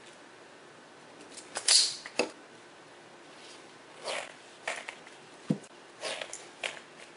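Hand wire stripper and crimping tool working a wire end: a sharp snip a little under two seconds in, then several softer clicks and scrapes as a crimp-on terminal is squeezed onto the wire.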